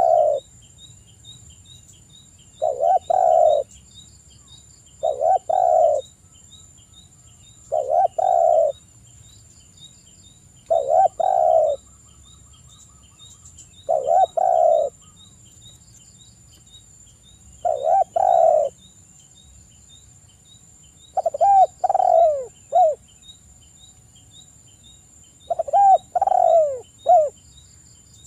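Spotted dove (tekukur) cooing: a low, hoarse coo phrase of about a second, repeated roughly every three seconds, the last two phrases longer, in three notes with falling glides. A faint, fast, even ticking and a thin high tone run underneath.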